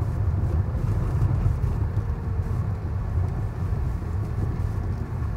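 Lada Vesta driving along: a steady low rumble of engine and tyres, without pause or change.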